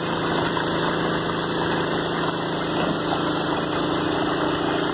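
Small pump engine running steadily, with water rushing through a gold prospecting crash box and splashing out into the pool.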